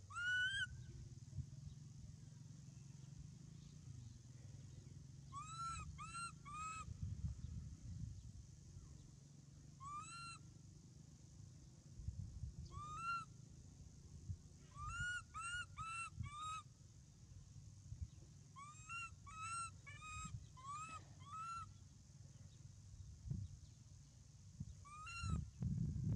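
Short, squeaky calls from a baby monkey, each rising then falling in pitch, coming singly and in quick runs of three or four. Low rustling and knocks underneath from it handling a child's bicycle, loudest near the end as it pushes against a plastic training wheel.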